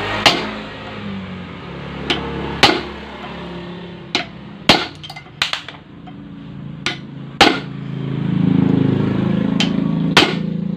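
Hammer blows on a steel punch set in a Yamaha NMAX starter one-way clutch resting on a steel block: about a dozen sharp metallic strikes at uneven intervals. The worn one-way clutch teeth are being peened outward so that they grip again and stop the rattling.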